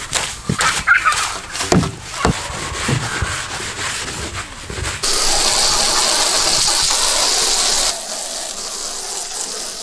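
A long-handled stiff-bristle brush scrubbing a fiberglass boat hull in irregular strokes, working an oxidation cleaner off the gel coat. About five seconds in, a hose spray starts hissing against the hull, loud for about three seconds and then quieter, rinsing the cleaner off.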